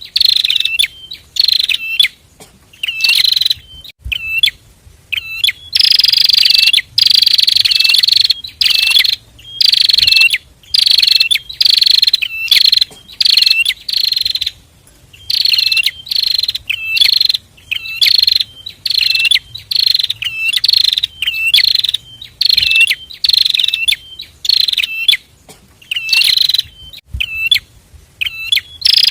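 A pair of prinias (prenjak) singing busily: loud, high, sharp calls repeated in quick bursts about one a second, with a longer unbroken run of calling a few seconds in.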